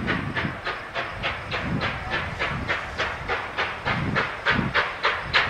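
Canadian Pacific 2816, a 4-6-4 Hudson steam locomotive, approaching at low speed. Its exhaust chuffs in a steady rhythm of about three beats a second over a low rumble.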